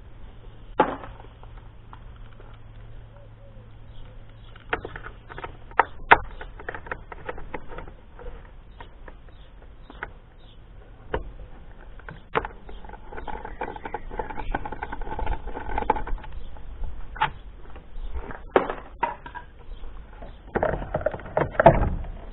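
Scattered clicks and knocks of a screwdriver working the screws and fasteners on a motorcycle's plastic air box cover, with a stretch of quick rattly clicking about midway. Near the end, a louder clatter as the plastic part is pulled free and lifted off.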